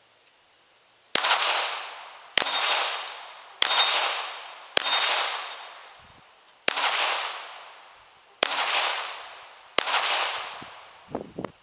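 Seven single shots from a Chiappa 1911-22 .22 LR semi-automatic pistol, fired at a slow, uneven pace, each trailing off in a long echo. A few soft knocks follow near the end.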